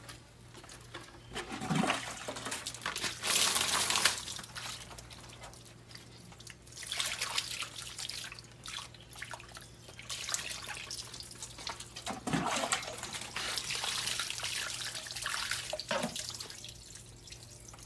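Water splashing and running over a skinned, gutted agouti carcass as it is rinsed and rubbed by hand, in spells of a few seconds.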